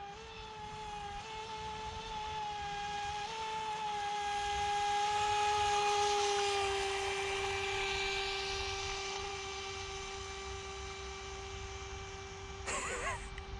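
Hosim RC speedboat's electric motor whining at a steady high pitch at full throttle, growing louder as the boat passes nearest about six seconds in and then fading, with a rushing hiss of water around the pass.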